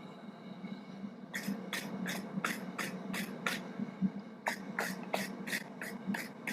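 A stiff wire butcher block brush scrubbed in quick back-and-forth strokes over hot forged steel hooks, about four strokes a second, to clean off scale. Two runs of strokes with a pause of about a second between them.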